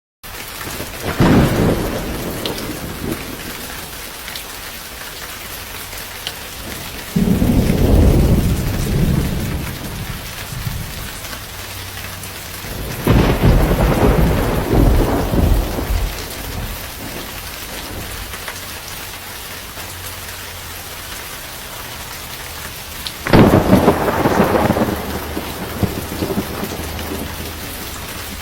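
Steady rain falling in a thunderstorm, with four rolls of thunder spread through it: one near the start, one about a quarter of the way in, one near the middle, and a sharper-starting one near the end.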